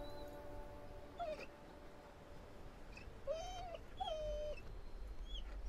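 Dog whimpering softly: a few short, high whines that slide in pitch, one about a second in and two more close together around three to four and a half seconds.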